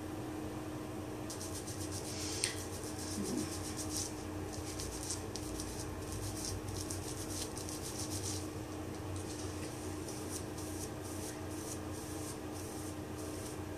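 Wet, product-coated hair being worked close by hand and then raked with a hair brush: long runs of quick, fine crackling rubs, with a pause of about half a second midway. One sharp click about two and a half seconds in; a steady low hum underneath.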